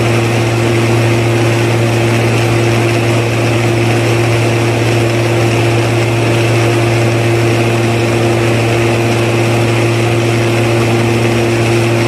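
A machine running steadily, giving a constant low hum with a steady higher tone above it, unchanging throughout.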